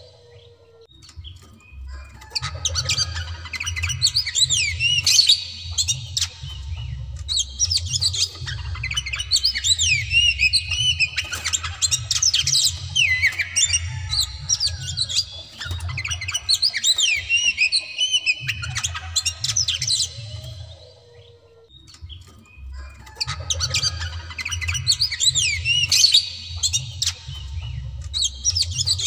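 White-bellied oriental magpie-robin (kacer) singing loudly in long bouts of rapid, varied whistles mixed with harsh squawking notes. It pauses briefly about a second in and again about two-thirds of the way through. A low steady rumble sits underneath.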